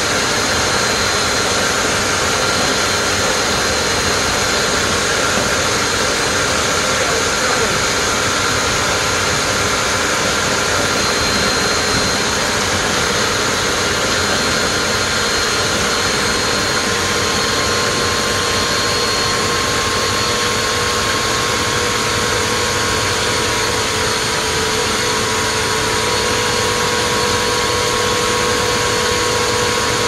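Bissell PowerForce Compact bagless upright vacuum running steadily through its hose nozzle, a rush of air with a steady whine, as it sucks up popcorn.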